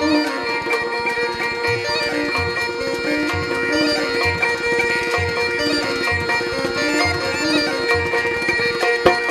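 Rajasthani folk instrumental music: a murli (been) with its steady drone, kamaicha and morchang, over a hand drum beating a low stroke about once a second.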